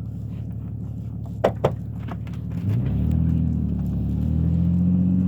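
Car engine idling, with two sharp knocks about a second and a half in. The engine then speeds up as the car pulls away and holds a steady, higher pitch.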